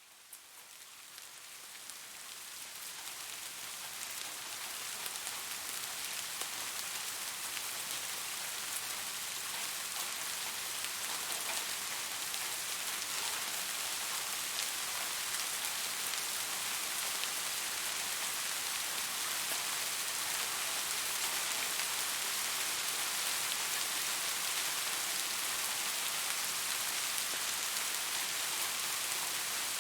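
Steady rain falling on a surface: a dense, even hiss with fine drop patter, fading in over the first few seconds and then holding constant.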